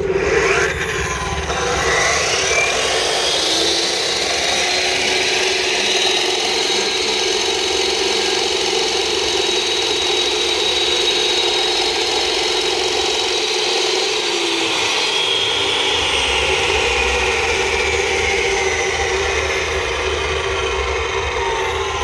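Electric concrete cutter's diamond blade cutting through a concrete slab: a loud, steady whine over grinding noise. It rises in pitch as the saw comes up to speed at the start, then runs steadily while it cuts.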